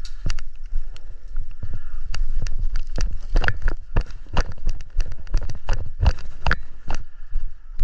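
Footsteps on a hard floor, with gear knocking and rattling, as a player moves quickly: an irregular run of sharp knocks, about two to four a second.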